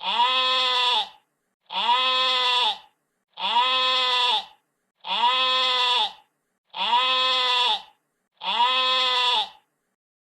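An animal call repeated six times at even intervals, each call about a second long and rising then falling in pitch, all six alike.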